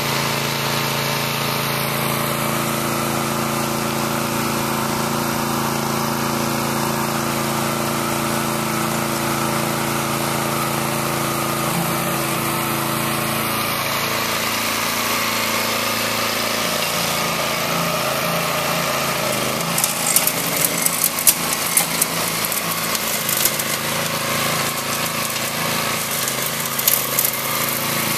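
Small gasoline engine of a walk-behind trencher running steadily, its pitch dipping slightly a couple of times. In the last third, irregular sharp clicks and knocks join in.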